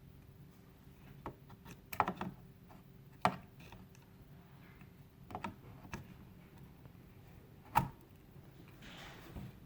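Sharp plastic clicks and knocks as computer memory modules are handled and pressed into a motherboard's memory slots, the loudest about two seconds in, just after three seconds and near eight seconds, over a faint steady hum.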